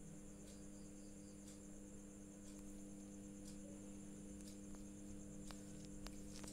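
Faint background: a steady low electrical hum under a high, steady chirring, with a soft tick about once a second.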